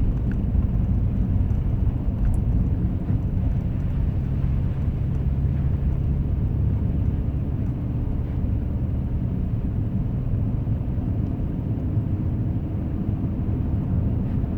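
A 2010 Acura MDX SH-AWD on the move, heard from inside the cabin: a steady low rumble of tyres and engine, with an engine note that rises slightly near the end.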